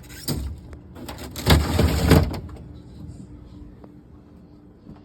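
Metal pot rattling and rumbling, set off by footsteps. It comes in a short burst and then a longer, louder one about a second and a half in, and then dies away.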